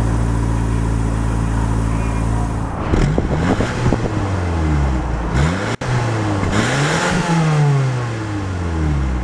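2006 Mazda3 s hatchback's 2.3-litre four-cylinder heard at the tailpipe: it idles steadily, then about three seconds in it is revved several times, the pitch rising and falling. It ends with one longer rev that falls slowly back toward idle near the end.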